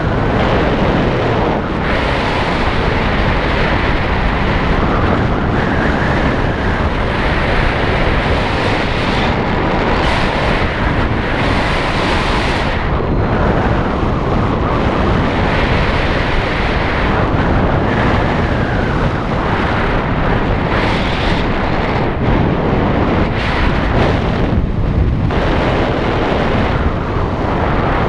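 Wind buffeting the microphone: a loud, steady rushing noise with no other sound standing out.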